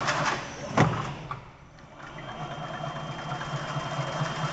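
Wire mesh weaving machine running: a few sharp metallic clanks in the first second and a half, then a steady, rhythmically pulsing mechanical hum that grows a little louder.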